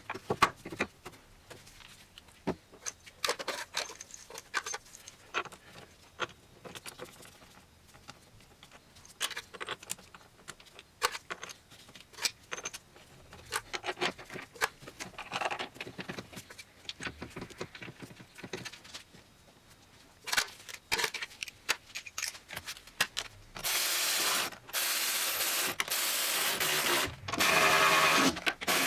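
Metal clinks, knocks and scrapes of tools and parts being handled during reassembly, then near the end three longer steady runs of a cordless ratchet spinning bolts in.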